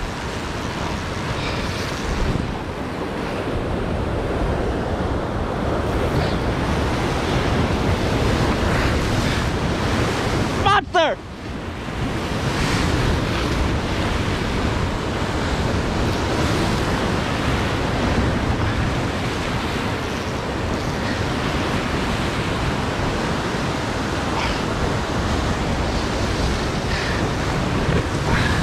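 Surf breaking and washing against a rocky lava shoreline, with wind buffeting the microphone. A short wavering, sliding tone cuts through about eleven seconds in.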